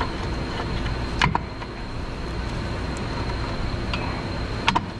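A few sharp metallic clicks as a new rear drum-brake shoe is worked into place against the backing plate while the hold-down spring is held back with needle-nose pliers: one about a second in, and two close together near the end, over a steady low hum.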